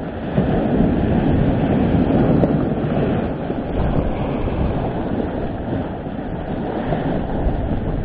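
Storm waves breaking and washing up the shore against a stone seawall, a heavy rushing surge with a deep rumble, loudest in the first few seconds, with wind buffeting the microphone.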